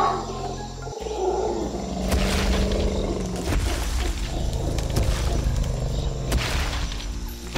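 Cartoon soundtrack: background music with a deep animal roar sound effect standing in for a woolly mammoth, and a few sudden knocks.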